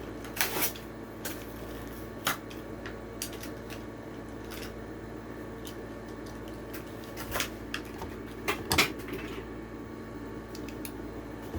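A diecast toy car's blister-card package being torn and pried open: irregular clicks, snaps and crinkles of plastic and card, with a cluster of louder snaps about two-thirds of the way through, over a steady low hum.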